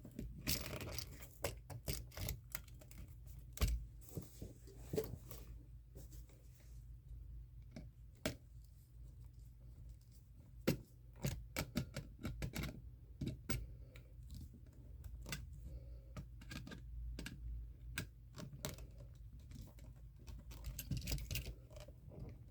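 Faint, irregular small clicks and scratches of hand work at an electrical outlet: the white neutral wire being fitted into its terminal and the terminal screw tightened down.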